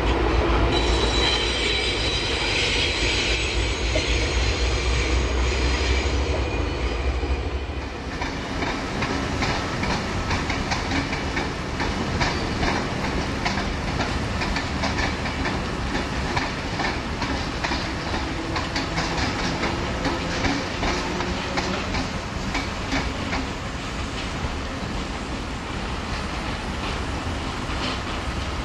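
Diesel train running, a loud low engine rumble over wheel noise; about eight seconds in it changes to a diesel locomotive rolling slowly over points and rail joints, a steady low engine hum under repeated wheel clicks and clatter.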